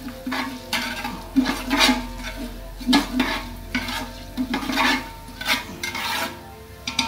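A long metal spoon scraping and stirring round the bottom of a large aluminium pot in irregular strokes, with whole spices sizzling in hot oil: the tempering (tadka) stage for kadhi.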